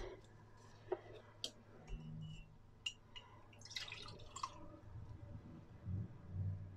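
Fig glycerite poured from a glass jar through a metal mesh strainer, dripping and trickling about four seconds in. Before it come a few faint clinks of glass and metal.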